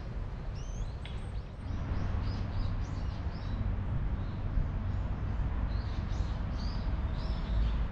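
Small birds chirping over and over, short high calls, over a steady low rumble.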